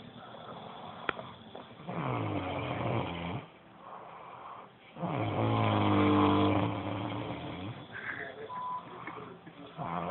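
Snoring: two long, rasping pitched snores a few seconds apart, the second the louder, with a third beginning near the end. A single sharp click about a second in.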